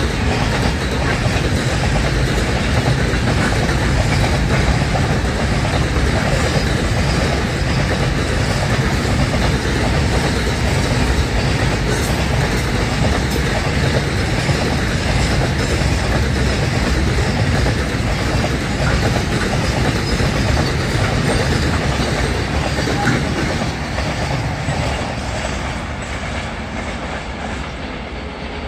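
Double-stack container wagons of a long freight train rolling past, steel wheels running on the rails. The sound fades near the end as the last wagon goes by and draws away.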